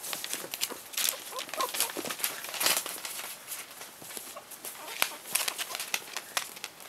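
Young puppies' claws clicking and scrabbling irregularly on a tiled floor, with newspaper crinkling as a puppy pushes its nose into it.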